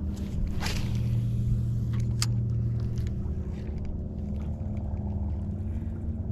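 Boat motor running steadily, a low hum, with a few brief clicks and knocks over it.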